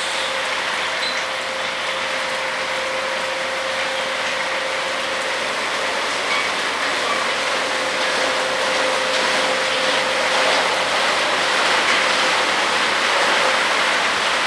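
Ceccato tunnel car wash running: a steady hiss of water spraying from the nozzles over the car, with a steady machine hum and mechanical clatter from the wash equipment, growing slightly louder near the end.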